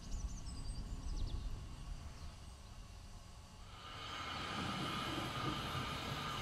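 Birds chirp briefly at first, then about four seconds in a 2-foot narrow-gauge steam train comes in as a steady hiss with a high, even tone running under it.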